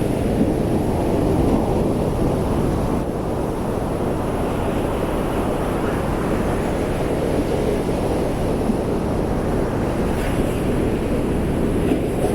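Atlantic Ocean surf roaring: a steady, deep rush of breaking waves with no distinct single crashes.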